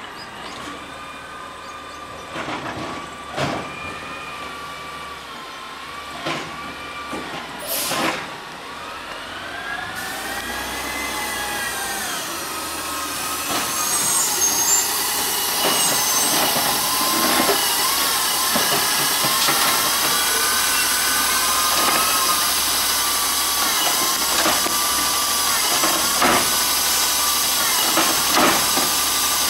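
Automated side-loading garbage truck with an American LaFrance cab running its hydraulic arm to pick up and dump carts. A whine bends up and down in pitch as the engine revs, with sharp knocks in the first half. From about halfway it grows louder and steadier with a hiss as the arm lifts a cart over the hopper.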